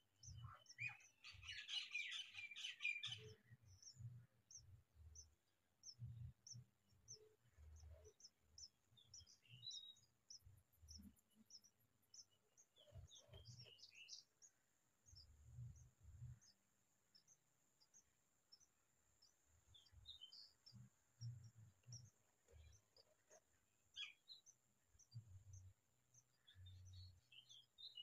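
House sparrow nestlings begging: a dense burst of high-pitched cheeping about a second in, then scattered faint cheeps over a steady run of soft, very high ticks. Soft low thumps come and go underneath.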